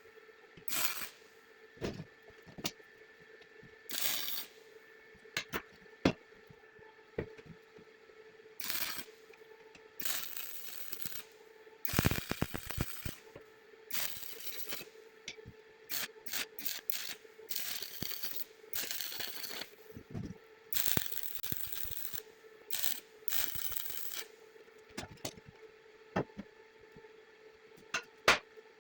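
Metal parts being handled in a workshop: a run of irregular clanks, knocks and clinks, with several scraping sounds about a second long each, over a faint steady hum.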